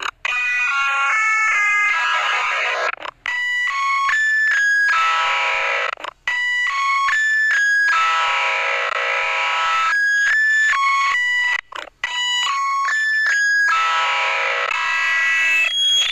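Effects-processed synthesizer logo jingle: a run of quick stepped notes ending in a long held chord, with a harsh alarm-like edge. The jingle restarts several times, cut off abruptly by brief gaps between repeats.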